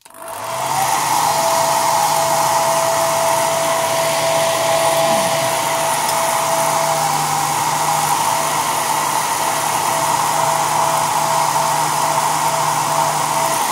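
Handheld hair dryer switched on, spinning up within the first second, then running steadily on its low setting as a steady whoosh with a hum and a faint whine. It is blowing hot air onto a metal zipper slider to heat it for repair.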